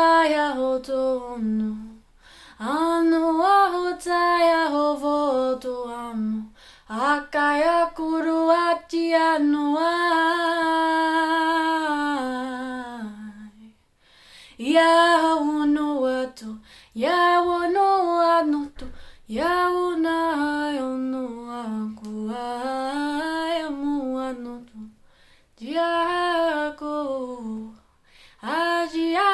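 A woman singing solo in 'light language', unaccompanied wordless vocables in long, held, gliding phrases of a few seconds each, with short breath pauses between them.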